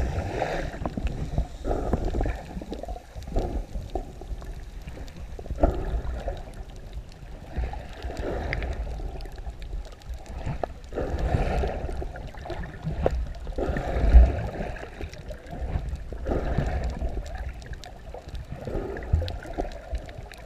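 Muffled underwater sound of water moving around a camera carried by a swimmer: a steady low rumble with swells of sloshing every couple of seconds and scattered small knocks.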